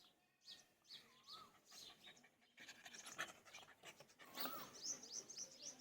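Puppy panting with faint short whimpers, in irregular bursts that grow busier after about two and a half seconds.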